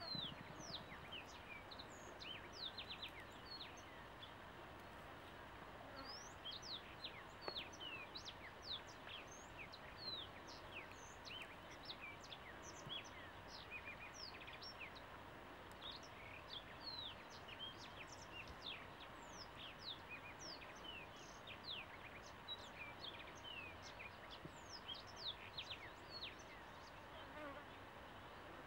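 Low, steady hum of honeybees from beehives, with many birds chirping over it in short, quick high notes throughout.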